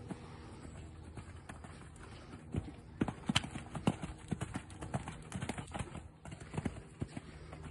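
Hoofbeats of a ridden horse moving over a sand arena surface, a quick uneven run of thuds that is loudest about three to four seconds in.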